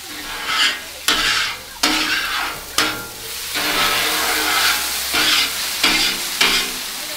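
Water squirted onto a hot Blackstone steel griddle top sizzling and steaming, while a scraper is pushed across the plate in repeated strokes. The water is deglazing burnt-on sugary stir-fry sauce off the griddle.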